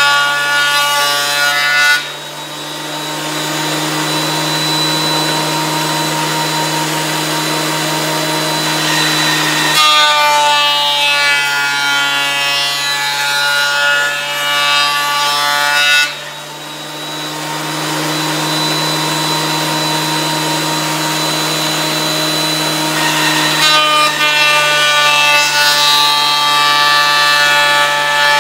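Electric wood planer running with a steady motor hum and a high whine. Twice it changes to a rushing cutting noise for about eight seconds, as wood passes through the cutterhead.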